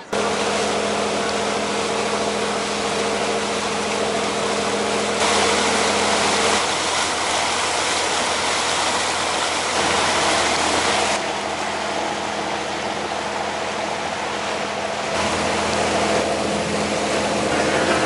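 Tour boat's engine running with a steady drone, under a broad rush of wind and water that shifts abruptly in level a few times.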